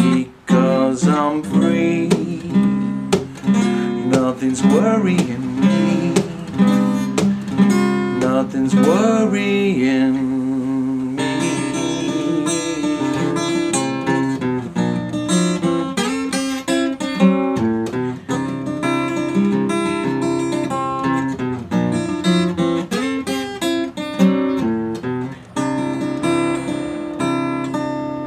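Solo acoustic guitar played without singing, picked and strummed notes and chords in a steady flow, with a couple of notes sliding up in pitch about a third of the way in.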